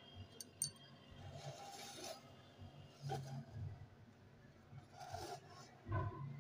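Faint rubbing and scraping sounds in a few short patches, with two quick clicks about half a second in.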